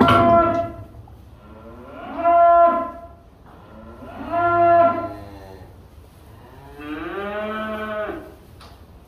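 Black Angus cattle mooing: a call running on at the start, then three more long moos, each about a second long, the last one lower in pitch.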